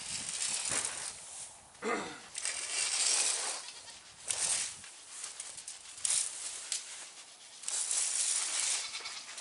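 A goat bleats once about two seconds in, the call falling in pitch, amid repeated bursts of hissing, rustling noise.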